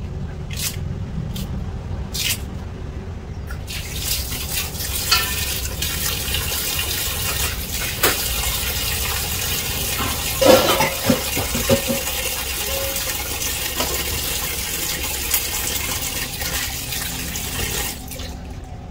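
Kitchen scissors snipping leafy greens three times, then a tap running into a stainless steel bowl of cut greens, the water splashing on the leaves, with a few knocks about halfway through. The tap stops near the end.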